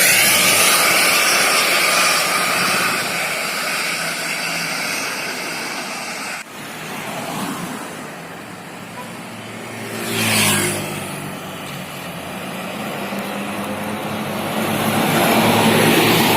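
Highway traffic noise: a large vehicle passes and its engine and tyre noise fade, dropping suddenly about six seconds in. A brief whoosh of a passing vehicle about ten seconds in is followed by another engine's steady hum that grows louder toward the end.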